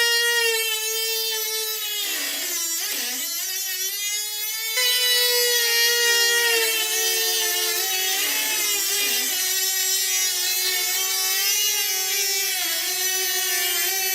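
A small electric motor whining steadily at a high pitch. The pitch sags and recovers about two seconds in and again around eight seconds in.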